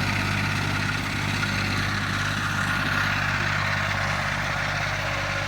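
Tractor engine running at a steady speed, a low even drone with mechanical noise above it.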